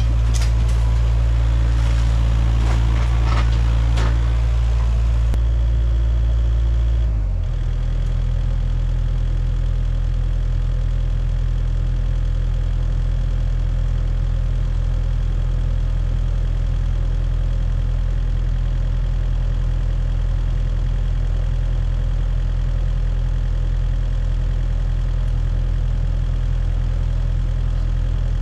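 Kubota KX057-5 mini excavator's diesel engine running at working revs, with debris clattering and crunching in the first few seconds. About seven seconds in, the revs drop and the engine settles into a steady idle.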